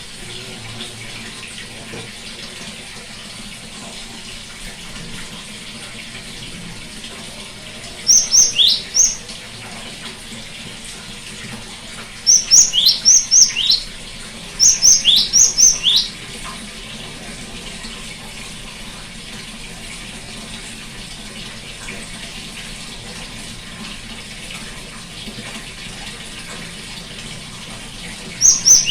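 Gelatik batu (cinereous tit) giving short runs of sharp, quickly repeated notes that fall in pitch. There are four bursts, each lasting one to two seconds, with a steady hiss in the background.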